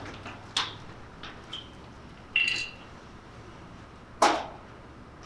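Quiet room tone broken by three brief noises: a short knock about half a second in, a short squeak around two and a half seconds, and a louder brief noise about four seconds in.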